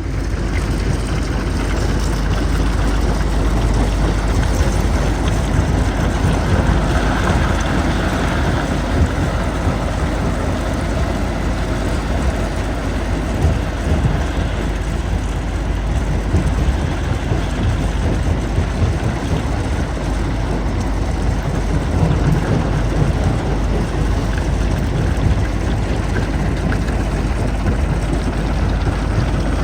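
Jonsson 1208 mobile jaw crusher at work with the excavator feeding it: a steady, loud diesel-machinery rumble under crushing noise, with a few louder knocks.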